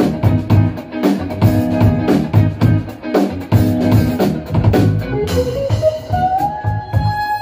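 Live instrumental funk band playing: electric guitar chords, bass guitar and a drum kit keeping a steady beat. About five seconds in, a saxophone line climbs in steps and holds a long high note near the end.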